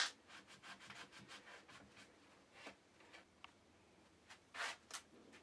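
Faint rubbing of a cloth wiping excess glue off a wooden chair joint: quick scuffing strokes, about five a second, then a couple of louder scuffs near the end.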